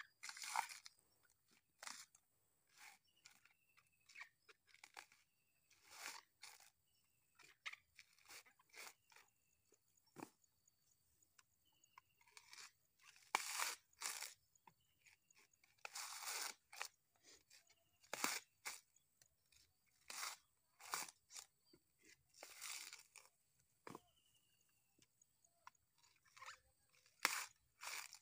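Coconut husks being pried open and torn off on a pointed husking stake. The dry fibre crunches and rips in irregular bursts, one every second or two.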